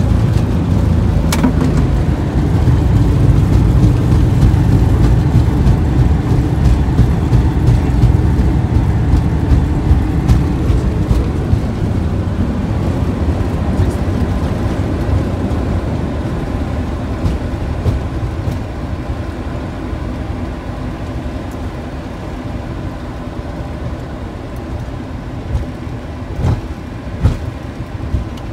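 Boeing 737-800 landing rollout heard in the cockpit: a loud, steady low rumble from the engines and the wheels on the runway. It builds over the first few seconds, stays loudest for about ten seconds, then fades slowly as the aircraft slows to taxi speed. A few sharp clicks come near the end.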